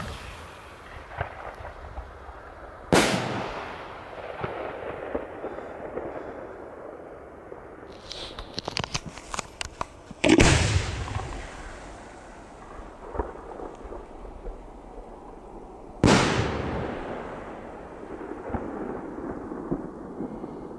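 Homemade glitter cylinder firework shell going off: three loud bangs about six seconds apart, each trailing off in a long echoing rumble. Shortly before the second bang there is a quick spell of crackling pops.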